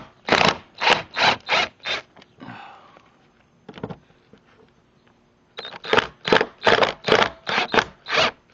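Cordless impact driver hammering in short pulses of about three a second as it backs out a caulked-over screw. There are two runs with a pause of about three seconds between them.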